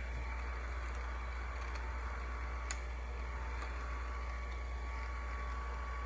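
Small electric motor of a bench-mounted chainsaw chain grinder running steadily with a hum and a faint whine, with a single sharp click about two and a half seconds in.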